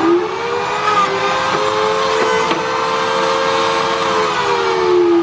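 Electric pocket-hole machine running: a steady motor whine as its cutter spins and the handle is pushed forward to cut a pocket hole in a board. The pitch begins to sink near the end.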